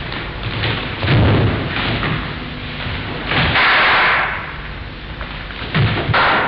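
Heavy thuds and knocks from footwork and a long wooden practice naginata during a two-person naginata kata on a wooden floor: one thud about a second in, another shortly after, and two close together near the end. A rushing noise lasting about a second comes midway.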